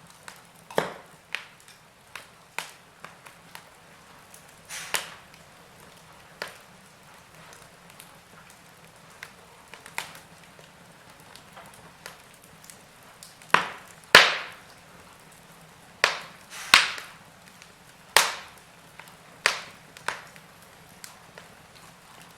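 Log fire crackling in a fireplace: irregular sharp pops and snaps over a faint hiss, with the loudest snaps clustered in the second half.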